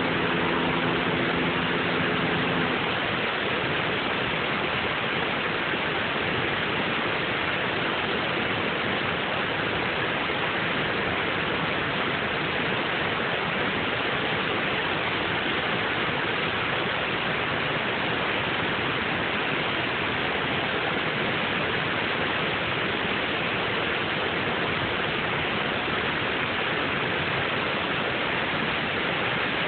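Water pouring over a low dam's spillway: a steady, even rush of falling water. A low steady hum sits under it at first and stops about three seconds in.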